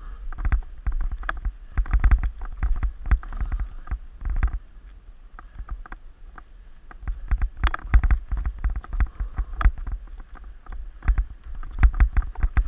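Mountain bike rattling and knocking as it rides over rocks and roots on a forest singletrack, over a steady low rumble. It goes quieter for a couple of seconds in the middle on a smoother dirt stretch, then the clatter picks up again.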